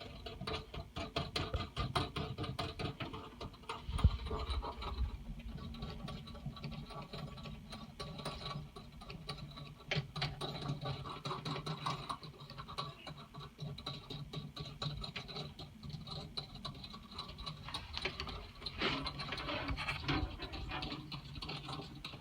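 Mounting nuts being spun by hand up a faucet's threaded shank: a run of quick, irregular light clicks and scratches, with one sharper knock about four seconds in, over a faint steady low hum.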